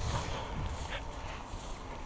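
A poodle moving close by in dry grass: quiet rustling and shuffling as it hands over a retrieved pheasant.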